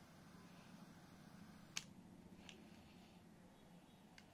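Near silence with a few faint clicks from a pistol-shaped cigarette lighter being handled: one sharper click a little under two seconds in, a softer one shortly after and a very faint one near the end.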